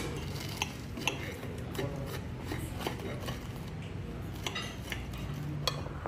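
Fork and knife clinking and scraping against a plate while cutting a sauced breaded cutlet: irregular sharp clinks over a low steady hum.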